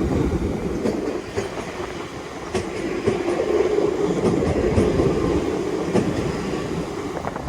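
Two coupled Class 350 Desiro electric multiple units passing through, a steady running hum with scattered clicks of the wheels over the rail joints.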